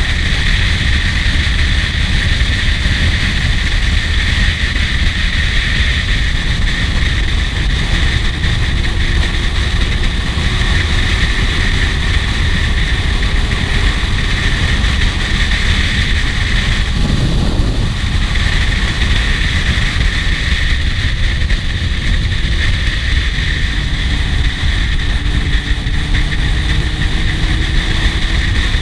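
Kawasaki Z750 S inline-four motorcycle riding at steady cruising speed, its engine drone mostly buried under heavy wind rush on the helmet-mounted camera. A brief louder rush about two-thirds of the way through.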